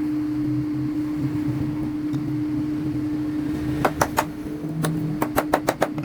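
Steady electric motor hum from workshop machinery. About four seconds in, a series of about ten sharp knocks, in two quick groups, rises above the hum.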